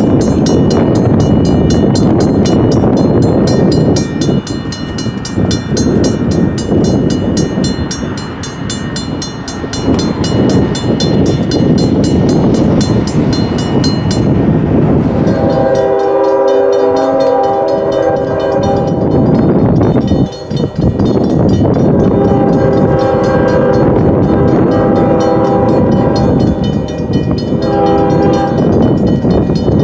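Safetran mechanical crossing bell ringing with even, rapid strokes over the rumble of a train. About halfway through, a train's air horn starts sounding in long chords while the bell keeps ringing.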